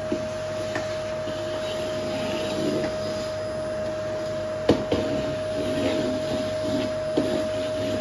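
Canister vacuum cleaner running steadily, its motor giving a constant whine while the floor head is pushed back and forth over a wooden floor. A sharp knock a little past halfway, and a smaller one near the end.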